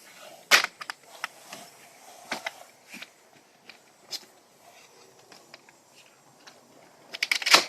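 Vinyl siding panel being handled and worked into place: scattered plastic clicks and knocks, a sharp one about half a second in and a rapid cluster of clicks near the end, the loudest of them.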